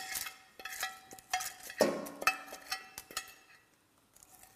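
A metal fork clinking and scraping against a glass dish while bay leaves are pushed off it into a pot. There are many short, ringing clinks over about three seconds, then a single clink near the end.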